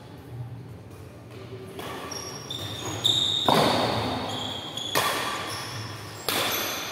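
Badminton rackets striking a shuttlecock in a fast doubles rally: several sharp hits in the second half, the loudest about three and a half seconds in, each ringing briefly in the hall. Shoes squeak on the court in between.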